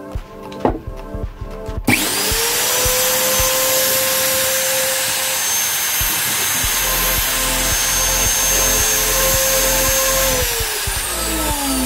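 Electric angle grinder's motor, test-run after its carbon brushes were reseated to check for heavy brush sparking. After a few clicks of handling it switches on about two seconds in, its whine rising quickly to full speed. It runs steadily for about eight seconds, then is switched off and winds down with a falling whine near the end.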